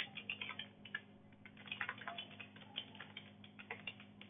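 Faint keystrokes on a computer keyboard, fast and irregular, in several short runs with brief pauses between them, as random letters are typed into one spreadsheet cell after another.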